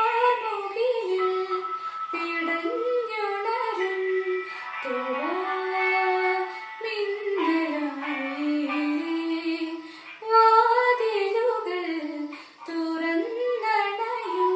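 A woman singing a melodic solo, her voice holding notes and sliding and ornamenting between them, with short breaths between phrases.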